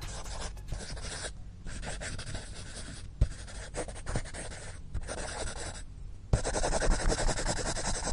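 Dense scratchy, rasping noise broken by a few short gaps and several low thuds. It gets louder about six seconds in, then cuts off abruptly.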